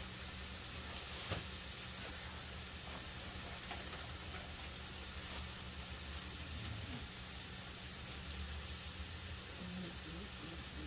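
Thin flattened ground-beef patty sizzling steadily in a cast iron griddle pan, with a low steady hum underneath.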